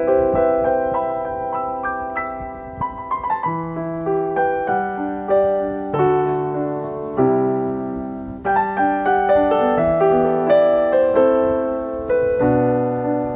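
Piano music with sustained chords over bass notes, changing every second or two, and a quick run of notes about three seconds in.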